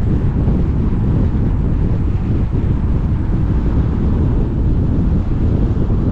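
Wind buffeting the microphone of a moving Ford Fusion, with steady low road and tyre rumble underneath; no let-up.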